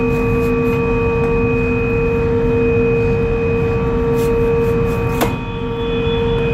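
Steady hum of a ferry's engines and machinery: a low rumble carrying a few constant tones, with one sharp click about five seconds in.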